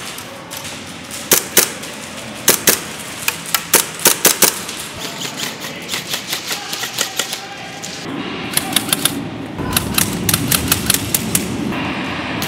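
Airsoft electric rifles firing in rapid strings of sharp snapping shots, several shots to a burst and bursts coming every second or so, with a pause of lighter clicks in the middle.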